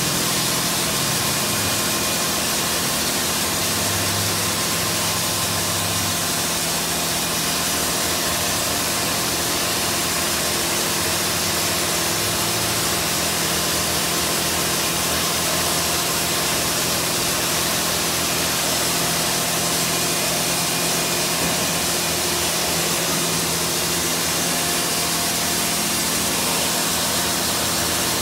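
D&S Quicksilver touch-free car wash gantry running: a steady loud hiss of high-pressure water spray over a low hum of pump motors.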